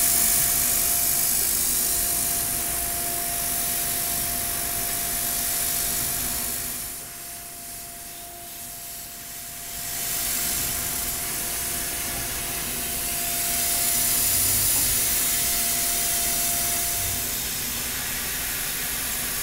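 Tormach 1100M CNC mill spot-drilling and drilling through-holes in thin mild steel under flood coolant: a steady hiss of coolant spray with a steady whine from the machine over it. It grows quieter for a few seconds near the middle, then picks up again.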